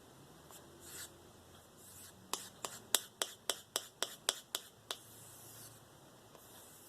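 Spyderco Endura 4 blade stropped with quick alternating strokes on a balsa strop loaded with diamond paste: a faint rubbing, then from about two seconds in a run of about a dozen light, sharp clicks, roughly four a second, that stops about five seconds in.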